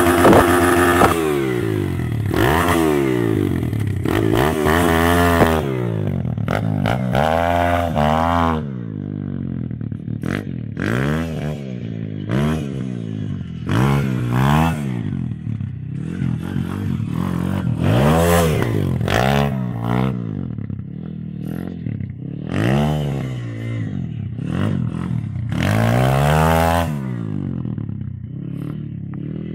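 MRF 140 pit bike's single-cylinder four-stroke engine being revved hard and let off again and again while ridden through wheelies. Its pitch rises and falls every second or two.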